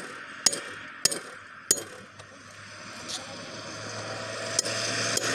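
A sledgehammer striking a steel tyre lever wedged at the bead of a tractor's rear tyre: sharp, ringing metal hits about every half second, four strong ones, then a few fainter, more widely spaced blows.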